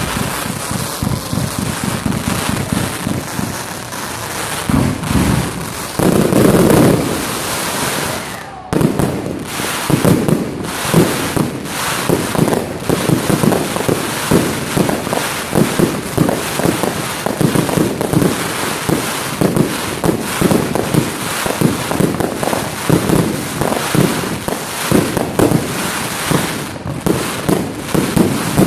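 Fireworks display: shells bursting with crackling, and a heavy low burst about six to seven seconds in. From about nine seconds in, the bangs come thick and fast, several a second, in a continuous barrage.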